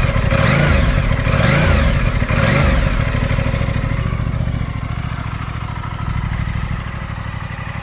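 Aprilia Tuono 660's parallel-twin engine, freshly cold-started, revved three quick times, each rev rising and falling, then settling back to a steady idle for the rest of the time.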